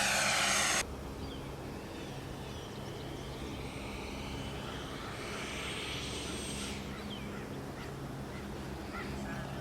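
Electric ducted-fan whoosh of an RC F-86 jet, with a sweeping, phasing hiss, that cuts off suddenly under a second in. After that, a steady outdoor background with faint, short bird calls.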